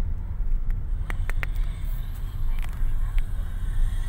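Steady low rumble of a car's engine and tyres, heard from inside the cabin while driving. A few faint short clicks come between about one and three seconds in.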